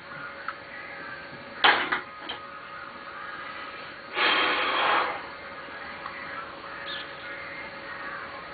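Person burping after chugging beer: a long, loud, rough burp lasting under a second about four seconds in, after a shorter sharp sound just before the two-second mark.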